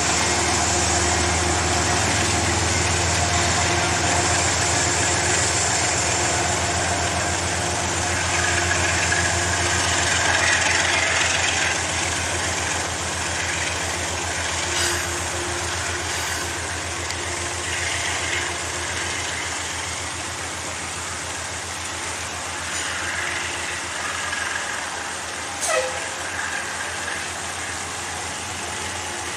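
Amtrak passenger train's diesel locomotive running with a steady low hum, gradually getting quieter. Two short clicks come about halfway through and near the end.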